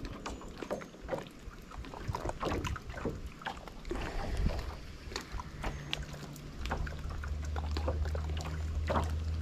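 Scattered small clicks and knocks of gear being handled in a small fishing boat, with a low steady motor hum coming in about halfway through.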